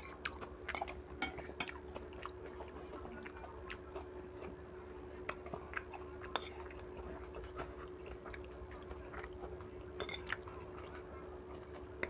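Metal spoon and fork clicking and scraping against a bowl and a small plate of rice while eating, with mouth sounds of chewing, over a steady faint hum.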